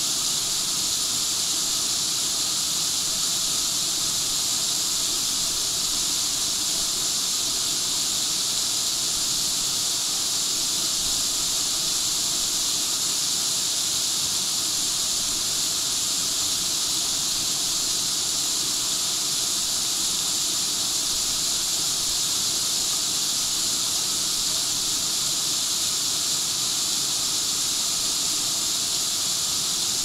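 Waterfall cascading down rock slabs into a pool, a steady high hiss of falling and splashing water that does not change.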